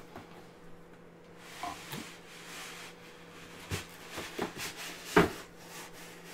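Cardboard packaging rustling and scraping as a heavy wooden box set is slid out of it, with a few knocks, the loudest about five seconds in. A faint steady hum sits underneath.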